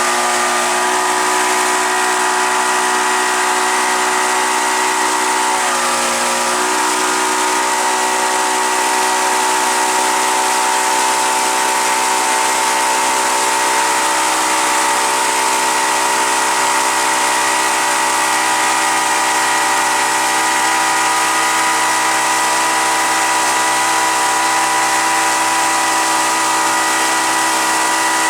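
Motorboat engine running steadily at speed, with a brief dip and recovery in pitch about six seconds in, over a constant hiss of wind and rushing water.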